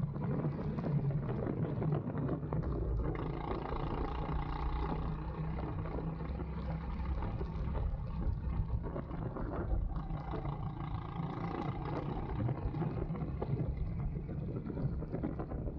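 Go-kart engine running at speed, its note holding fairly steady with small changes in pitch, with wind buffeting the microphone.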